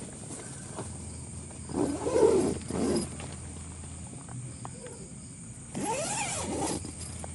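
Animal calls: a loud short call about two seconds in, a second one just after, and a rising-and-falling cry about six seconds in.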